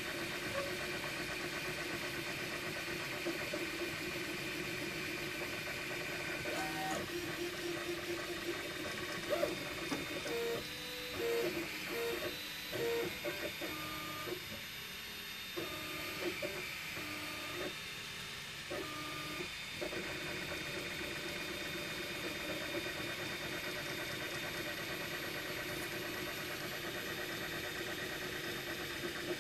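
MakerBot Replicator 2 desktop 3D printer printing in PLA: its fan and stepper motors run steadily. In the middle there is a stretch of short tones that step up and down in pitch as the extruder head moves in quick short strokes.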